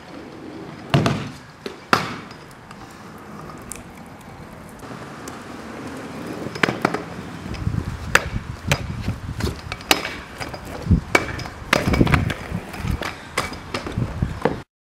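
Kick scooter riding: two loud, sharp impacts about a second apart near the start, as it launches off a wooden kicker ramp and lands, then the small wheels rolling over brick pavers with a low rumble and many sharp clacks, cutting off suddenly near the end.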